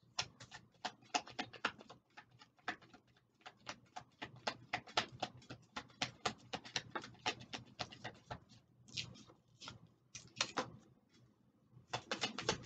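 A deck of oracle cards being shuffled by hand: a rapid, irregular run of light papery clicks and flicks, with brief pauses about nine and eleven seconds in.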